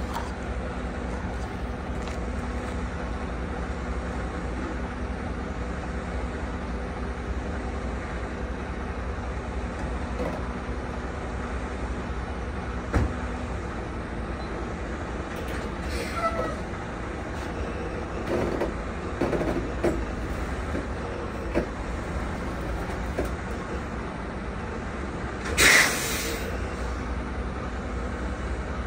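Semi-truck diesel engine idling steadily, with a sharp knock about midway and a short, loud burst of air hissing from the truck's air brake system near the end.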